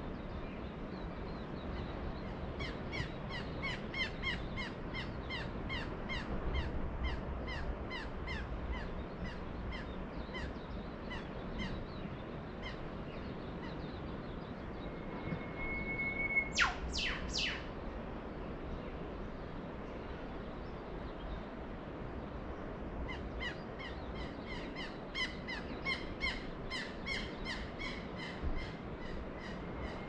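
Birds calling: one repeats a short high call about three times a second in two long runs, and midway another gives a long held whistle that ends in a sharp whip-crack, over a steady low background noise.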